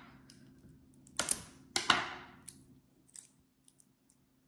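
A person sniffing twice at a small essential oil bottle held close to the microphone, about a second in and again just before two seconds, followed by a few faint clicks of handling.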